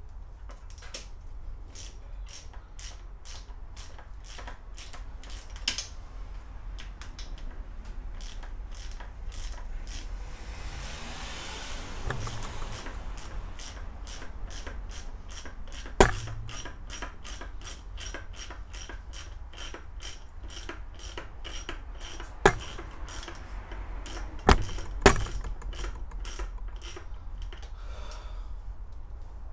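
Socket ratchet clicking in a steady run, about three clicks a second, as fasteners on a motorcycle engine's top end are worked loose. Four sharp metal knocks stand out in the second half.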